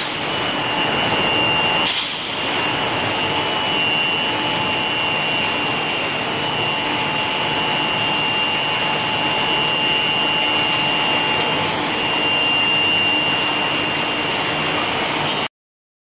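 Running induction forging furnace line: a steady machine hiss with a steady high whine over it, and a single clank about two seconds in. The sound cuts off suddenly near the end.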